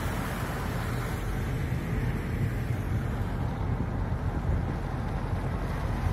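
Steady road and engine noise heard inside a moving car's cabin.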